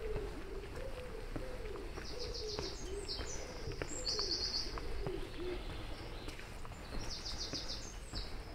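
A pigeon cooing in a low, wavering run that dies away partway through, while a small bird gives three short, rapid, high trills. Faint footsteps tick underneath.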